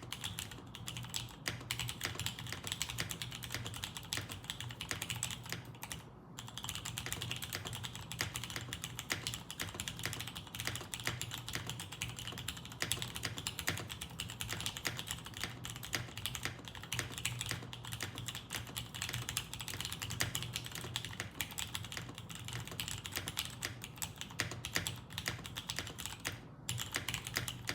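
Fast, continuous typing on a Through75 mechanical keyboard with Cherry MX Clear tactile switches and DCS-profile keycaps, a dense run of key clacks that pauses briefly about six seconds in and again near the end. A steady low hum sits underneath.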